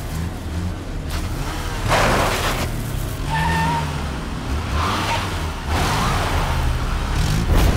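Car engines running with tyres skidding, in several swells of engine and tyre noise, with a short high tyre squeal about halfway through.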